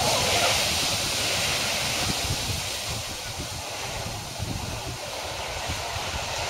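Ocean waves and surf washing steadily, with wind buffeting the microphone.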